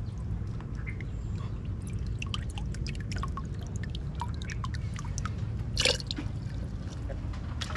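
Water dripping and splashing: many small scattered drops over a steady low rumble, with one sharper click about six seconds in.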